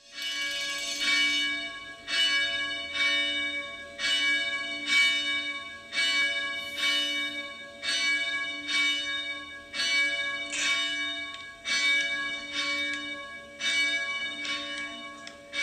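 A single church bell tolling steadily, about two strikes a second, each strike ringing on under the next.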